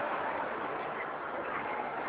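Steady, indistinct crowd murmur of a sports venue, with no single event standing out.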